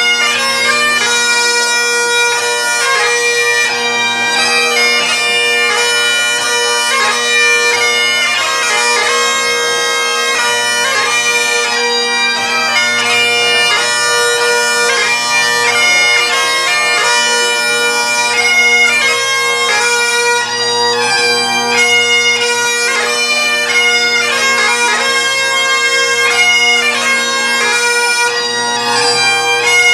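Great Highland bagpipes playing a tune: a shifting chanter melody over steady drones.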